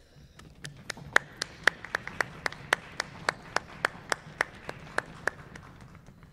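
A few people applauding, with one pair of hands clapping close and loud at about four claps a second; the applause dies away near the end.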